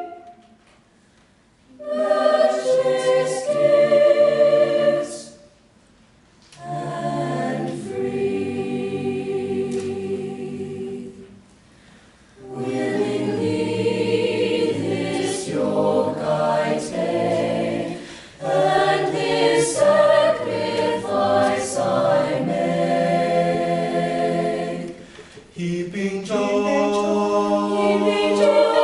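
Choir singing in several parts in long phrases, with brief near-silent pauses between them, the first about a second in and others near the sixth and twelfth seconds.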